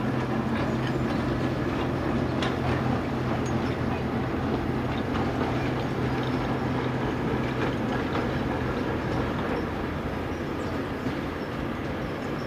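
Heritage diesel locomotive running with a steady engine note, with a few sharp clicks from the train; the note eases off slightly near the end.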